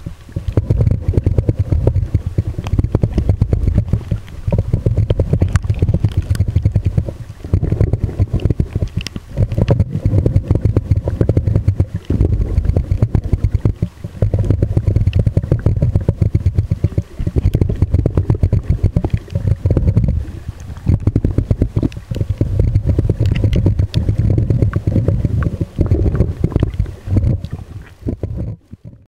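Muffled underwater rumble and crackle of water moving against a small point-and-shoot camera sealed in a soft plastic bag, swelling and easing every few seconds.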